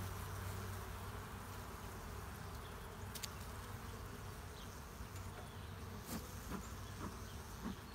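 Honeybee colony buzzing steadily from the opened hive, with bees flying close past. The bees are stirred up at the disturbance and "not happy".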